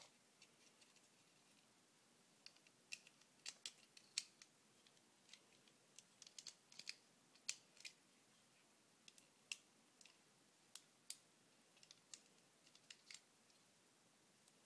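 Irregular sharp clicks and snaps of small plastic Lego pieces being handled and pressed together, as a piece that doesn't want to fit is worked into place.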